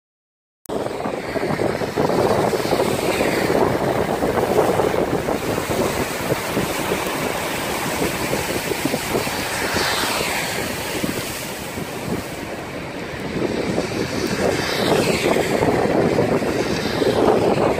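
Steady rushing of a car driving on a rain-soaked road: tyre noise on wet tarmac mixed with wind. It starts abruptly under a second in, with a few swishes that swell and fade.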